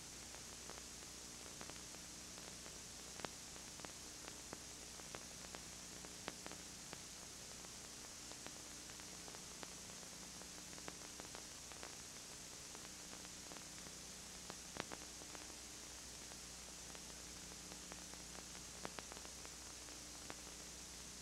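Steady tape hiss with a low mains hum and scattered faint clicks: the empty audio track of a VHS tape transfer.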